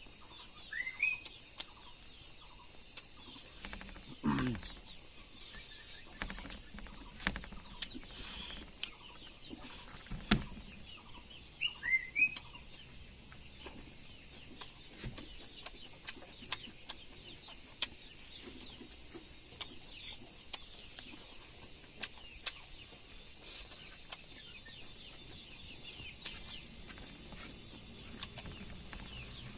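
Chickens clucking with a few short rising chirps over a steady high insect drone, with scattered small clicks and taps.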